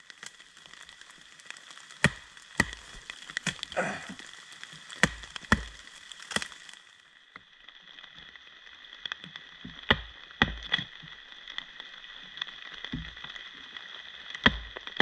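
Batoning: a wooden stick knocking a survival knife down into a resinous stump, sharp knocks mostly in pairs about half a second apart, every few seconds. A rougher scraping crack comes about four seconds in as the blade works into the wood.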